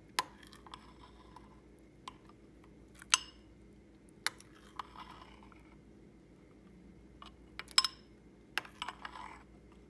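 A glass mixing bowl clinking as oatmeal batter is scraped out of it into a baking dish: several sharp, separate clinks a second or more apart, with a quick pair a little before the end.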